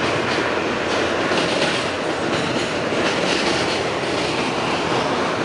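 R160A subway car running along an elevated line, heard from inside the car: a steady rumble of wheels on rail, with repeated clicks as the wheels cross the rail joints.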